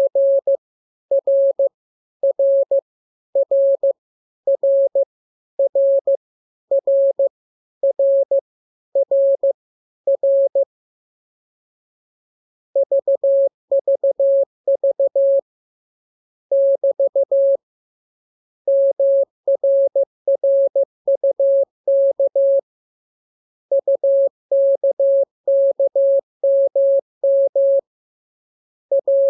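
Morse code letters played as a single mid-pitched practice tone keyed in dots and dashes. The same short character repeats about once a second ten times, then after a pause several different characters follow in runs with gaps between them.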